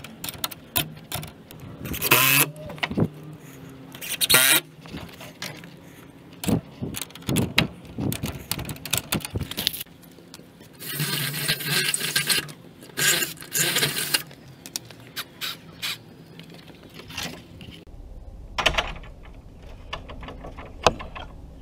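A wooden fence gate being worked open and shut: irregular clacks and knocks from its metal latch and frame, with footsteps on gravel and tools jangling.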